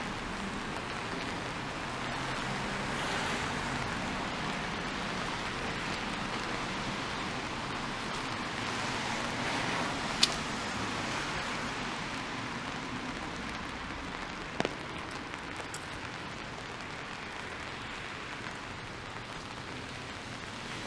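Steady rain on a wet city street, with the hiss of car tyres on wet pavement swelling and fading as traffic passes. Two sharp clicks stand out, about ten and fifteen seconds in.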